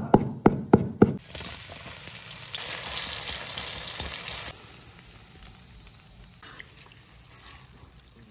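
A knife chopping on a wooden cutting board, four sharp strikes in the first second. Then hot oil sizzling in a wok with sliced green chilies, a steady hiss that cuts off suddenly about four and a half seconds in. After that, faint sounds of a shredded vegetable salad being tossed by gloved hands in a steel bowl.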